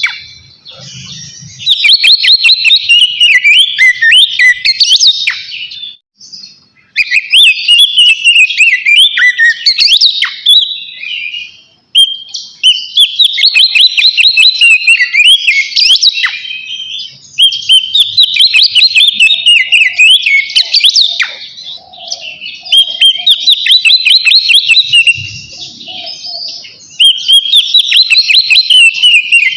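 Oriental magpie-robin (kacer) singing loud full song: long runs of rapid, varied whistles and trills, broken by brief pauses every few seconds.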